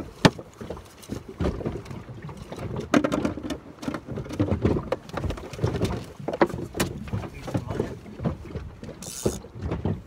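Irregular knocks, clicks and thumps on an inflatable boat as a freshly caught kahawai and the fishing rod are handled aboard.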